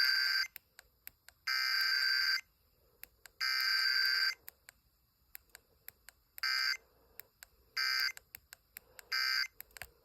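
Emergency Alert System SAME data tones for a Required Weekly Test: buzzy bursts of the digital header about a second long and a second apart, three in all, the first already under way. After a gap of about two seconds come three short end-of-message bursts, with faint clicks between the bursts.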